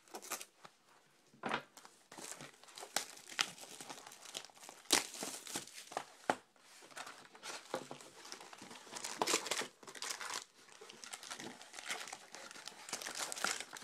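Crinkling and crackling of a sealed trading-card hobby box being handled and opened, and its plastic-wrapped card packs rustling, with irregular sharp crackles and a few tearing sounds.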